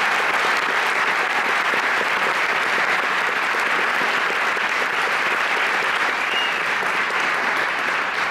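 Audience applauding: many people clapping steadily, easing off slightly near the end.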